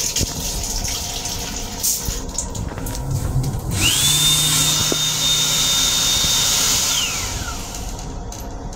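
Faucet water running into a small stainless-trimmed train lavatory sink, then the built-in hand dryer of an M7 railcar's dryer/faucet/soap unit starts: its motor whines up to a high steady pitch with a rush of air, blows for about three seconds, and winds down with a falling whine.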